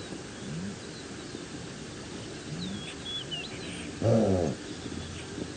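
A wild animal gives one short call of about half a second, about four seconds in, with faint bird chirps in the background.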